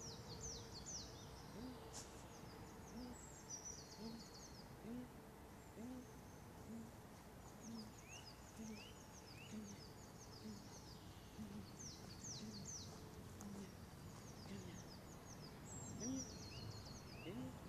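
Faint birdsong: high, quick trilling songbird phrases over a steady series of short, low calls repeated about once a second.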